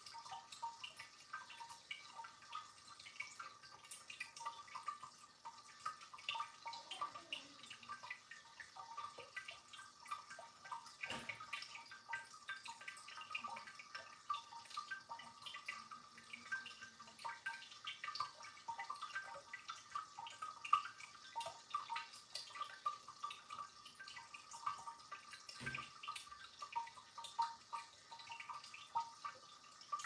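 Tabletop ceramic cascading fountain: water trickling from jug to jug, with a constant, irregular run of small drips and plinks.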